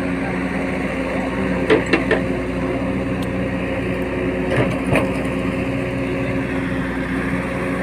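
An engine running steadily with an even hum, with a few short knocks about two seconds in and again about five seconds in.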